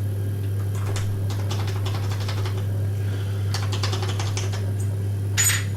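Light metallic clicking and ticking from a pin-tumbler door lock as its picked plug is turned back round with a tension bar, with a sharper click near the end. A steady low hum runs underneath.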